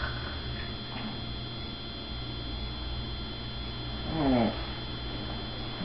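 Steady low hum in a quiet room, with one short cry about four seconds in whose pitch falls steeply.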